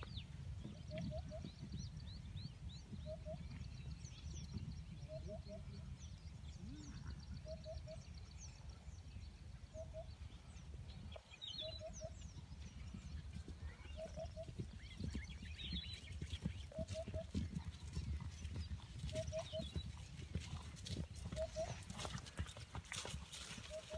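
Soft hoofbeats of a mare and her young foal moving over grass, growing more frequent near the end, over a steady low rumble. Birds chirp throughout, and a short two-note call repeats about every two seconds.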